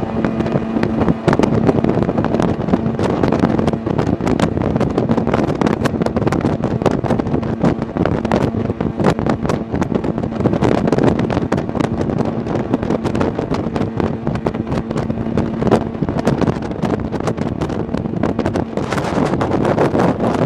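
Sea-Doo Speedster jet boat under way: its engine drones steadily, with its note fading in and out, beneath heavy wind buffeting on the microphone and many short, sharp knocks.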